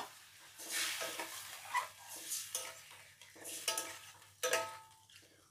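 A long metal spatula stirring a watery curry in a steel kadai, scraping and clinking against the pan in about half a dozen strokes.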